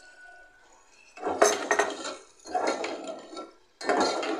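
A steel ladle scraping and clattering against an aluminium pot as pieces of beef liver are stirred in oil and garlic-ginger paste. It comes in three strokes about a second apart, starting a second in.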